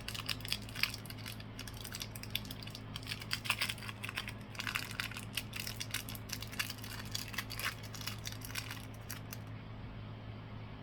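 Small packaging being handled close by: quick crinkles, rustles and light clicks as a ring is unwrapped and freed from its card. These stop about nine and a half seconds in. A steady low hum runs underneath.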